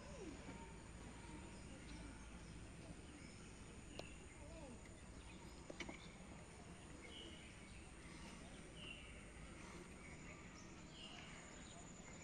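Near silence: faint outdoor background with a few faint short high chirps and two or three soft clicks.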